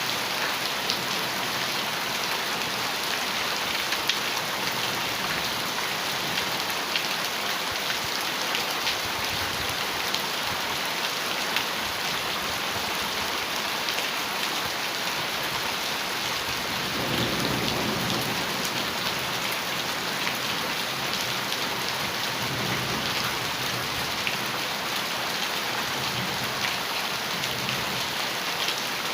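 Heavy rain falling steadily on a metal roof, with individual drops ticking through the hiss. A low rumble of thunder swells about halfway through, and fainter rumbles follow.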